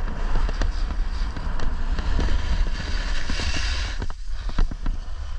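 Wind buffeting the microphone during a run down a ski slope, a steady low rumble, with the hiss of snow scraping under a board or skis. The hiss swells about three seconds in and falls away a second later.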